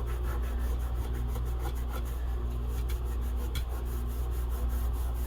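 Rapid rubbing or scraping on an old, dirty section of steel toy train track, about eight to ten strokes a second, over a low steady hum.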